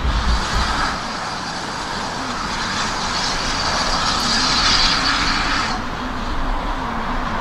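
Steam-hauled passenger train running away along the line: a steady rumble of the coaches on the track, under a rushing hiss that drops away suddenly about six seconds in.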